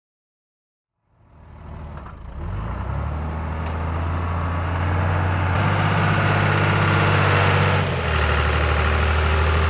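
Road sweeper truck engine running steadily with a hiss above it, fading in about a second in; its note changes twice.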